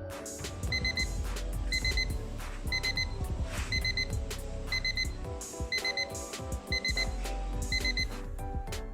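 Digital alarm clock beeping in quick groups of four, about once a second, over background music.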